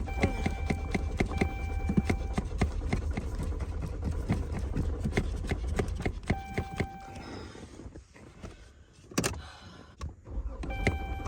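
Car engine cranked by the starter without catching: a rapid, even chugging over a low rumble, with a warning tone switching on and off. The cranking dies away about seven to eight seconds in, a single sharp click follows about nine seconds in, and the cranking starts again near the end.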